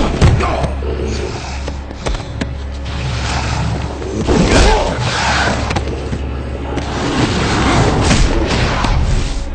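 Movie fight sound effects: a series of heavy booming thuds and hits with noisy rushing swells, over a steady low droning music bed.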